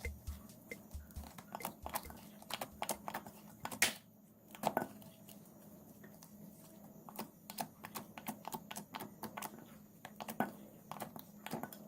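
Irregular light clicks and taps, several a second, with a few louder ones, over a faint steady hum.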